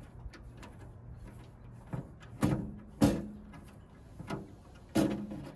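Handling noise from wiring work on a plastic tray: three sharp knocks with a brief ring, two close together near the middle and one near the end.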